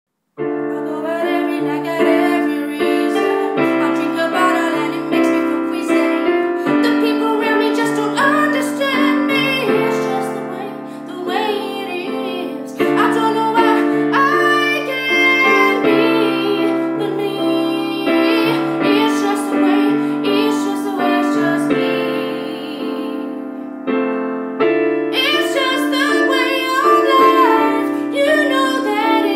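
A woman singing a pop ballad with piano accompaniment, starting about half a second in.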